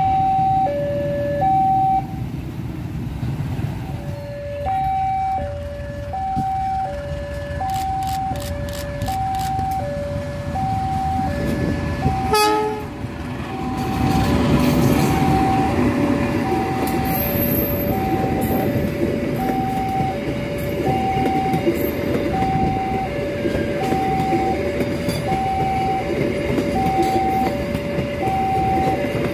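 Railway level-crossing warning alarm repeating a steady two-note ding-dong, alternating about once a second, over the rumble and wheel noise of a passenger train passing. About halfway through the sound cuts abruptly to a diesel locomotive hauling its train past, with the alarm still sounding.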